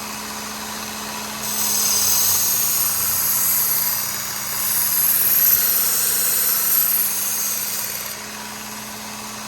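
Work Sharp Ken Onion Edition belt sharpener running with a steady motor hum while a knife blade is ground on its 200-grit Trizac belt. The grinding hiss comes in two passes: it starts about a second and a half in, dips briefly near the middle, and stops about a second before the end.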